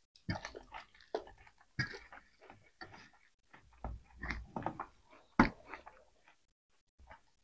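Close-up eating sounds: two people chewing and smacking while mixing rice and roasted pork by hand on steel plates, a run of uneven soft clicks and rustles with one sharper click about five seconds in.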